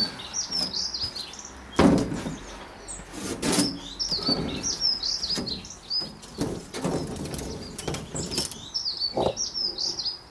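A ribbed clear plastic cold-frame lid scraping and knocking against the frame's wooden edges as it is lifted and slid into place, with a sharp knock about two seconds in and several softer scrapes after. Small birds chirp rapidly and continuously behind it.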